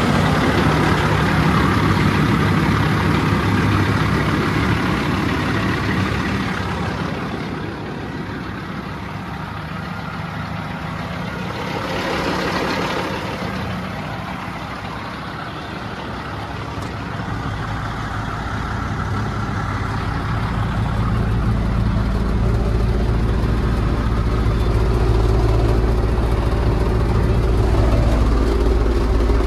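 Diesel engine of a 2006 Peterbilt 379 truck tractor idling steadily. It grows fainter for several seconds midway, then turns deeper and heavier in the last third, heard from inside the cab.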